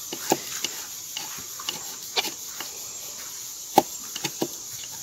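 Knife cutting and prying small splinters from old chihuahuaco driftwood: irregular sharp cracks and scrapes of the blade in the wood, the loudest snap near four seconds in.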